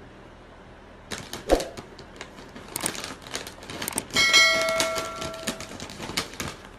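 Plastic chip bag crinkling and crackling as a cat paws and noses into it. About four seconds in, a bell-like ding rings out and fades over a second or so: a subscribe-button notification chime.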